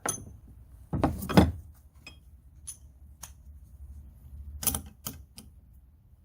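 Metal hand tools clinking and clanking: a series of short metallic knocks, the loudest cluster about a second in, then a few lighter clicks near the end.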